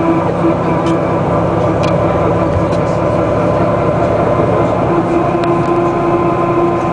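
Interior sound of a Den Oudsten Alliance B96 city bus under way: engine and drivetrain running steadily. A steady whine drops away for a few seconds in the middle and comes back near the end.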